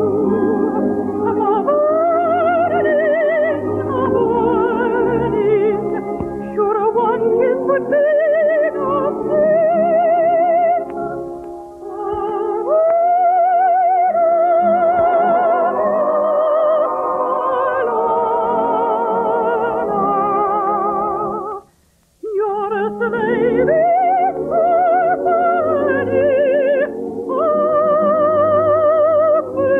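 A soprano singing an operetta song with wide vibrato over orchestral accompaniment. The music breaks off for about half a second about two-thirds of the way through, then resumes.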